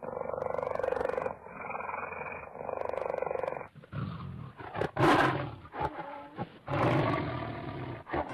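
Lion roaring, a cartoon sound effect: one long roar for the first few seconds, then more roaring, louder and rougher, with sharp hits from about four seconds in.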